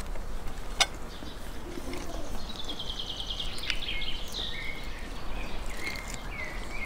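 Songbird singing: a fast trill of quick high notes falling slightly in pitch, followed by shorter chirps, over steady background noise. A single sharp click about a second in.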